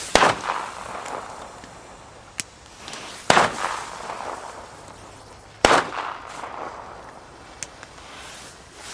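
Funke Titanschlag blau titanium flash-banger firecrackers going off one after another. There are three loud bangs about two and a half seconds apart, each trailing off in an echo, with two smaller pops in between.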